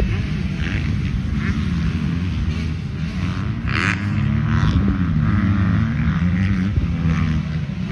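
Several motocross bike engines revving as the bikes race around a dirt track, their pitch rising and falling through throttle changes and gear shifts.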